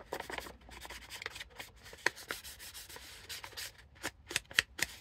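Paper being inked by hand: an ink pad rubbed and dabbed along a cut paper edge in a run of short, scratchy strokes, with a few sharper taps in the last couple of seconds.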